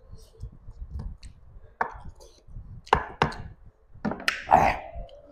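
Close-miked eating of chicken curry by hand: chewing with several sharp crackling clicks and wet smacks. The loudest comes about four and a half seconds in.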